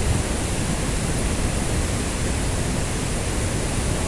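Steady rushing of water at a river waterfall: an even noise with a strong low rumble.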